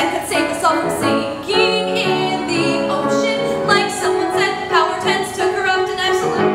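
A woman's voice singing a musical-theatre song over instrumental accompaniment.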